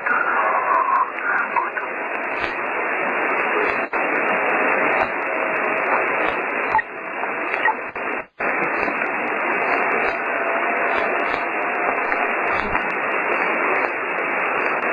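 Radio static: a steady hiss through a narrow, radio-like band that cuts out for an instant a little past halfway, used as a ghost sound effect.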